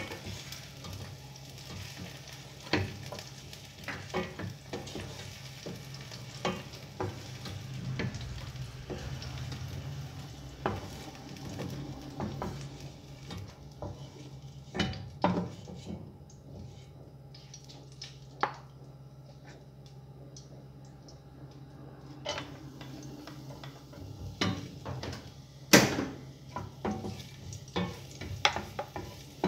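Wooden spatula scraping and knocking against a nonstick frying pan while food sizzles in hot oil, over a steady low hum. The knocks are sparser for a few seconds past the middle, and the loudest comes a few seconds before the end.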